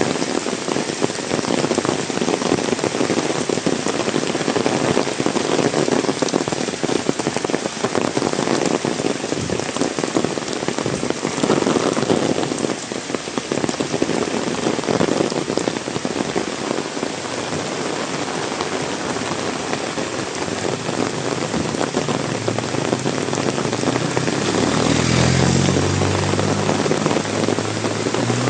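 Heavy rain pouring and pattering densely on surfaces, with a steady rush of countless drops. Near the end a low, wavering droning hum joins in under the rain.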